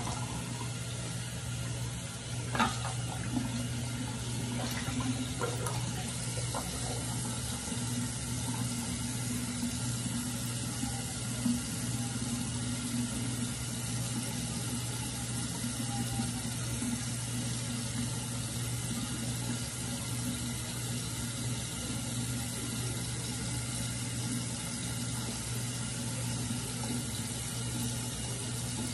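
Bathroom tap running steadily into a sink, with a few brief sharper sounds in the first several seconds and once around the middle.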